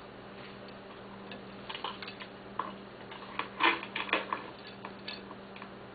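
Irregular light clicks and taps of small hard objects being handled, such as oyster shells, pearls and tools, with a few about two seconds in and a denser cluster around three and a half to four seconds. A steady low hum runs underneath.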